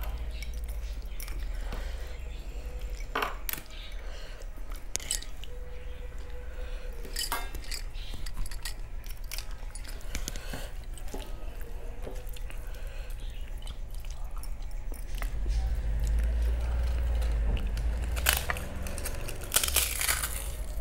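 Close-up eating sounds: chewing, and a hand mixing rice on a steel plate with scattered sharp clicks and clinks. Under it runs a steady low hum that grows louder near the end.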